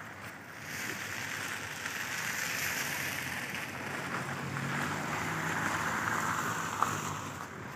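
A steady rushing hiss like tyres on a wet, slushy road, swelling in about half a second in and fading away near the end, with a faint low engine hum under it in the second half.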